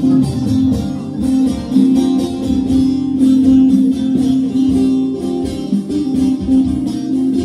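Bağlama (long-necked Turkish saz) playing a quick instrumental passage of picked notes, with an acoustic guitar accompanying.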